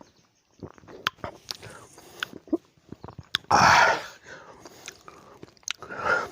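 Close-up mouth sounds of eating lemon: many short wet clicks and smacks of biting and chewing. About three and a half seconds in comes a loud, half-second breathy rush, and just before the end a shorter breathy sound.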